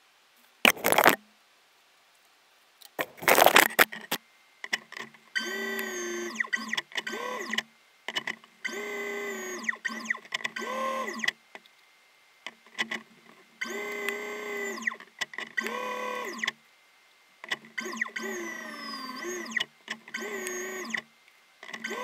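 Background synthesizer music in short phrases of gliding, pitched tones, each a second or two long and separated by brief gaps. Two loud, short noises come about one and three and a half seconds in.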